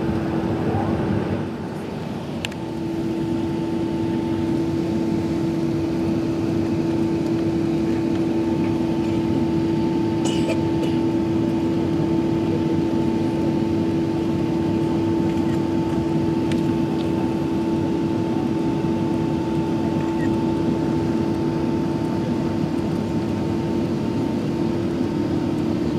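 Airbus A380 jet engines and airflow heard inside the passenger cabin while climbing out: a steady rush with a strong low hum and a fainter higher tone. About two seconds in the noise dips briefly, then settles back steady with both tones firmer.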